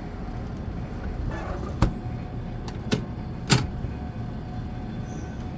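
Three sharp clacks, the loudest about 2, 3 and 3.5 seconds in, from handling a coin-operated antique bottle vending machine, over a steady low rumble.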